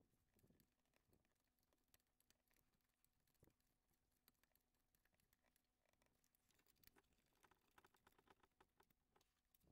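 Near silence, with faint scattered clicks and a short run of quick faint ticks about seven seconds in.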